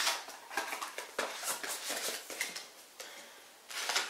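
Small cosmetic packaging and calendar cardboard being handled: scattered clicks and rustles, with a short lull about three seconds in and a louder rustle near the end.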